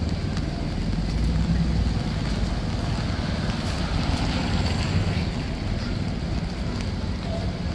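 Steady city street noise: a low rumble with an even hiss over it.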